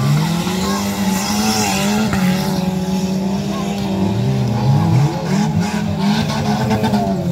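Engines of several small stock cars racing on a dirt track, revving up and dropping back as they take a bend and accelerate away. Their notes overlap and rise and fall in pitch throughout.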